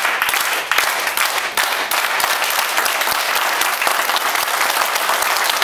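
An audience applauding: a dense, steady clatter of many hands clapping at once.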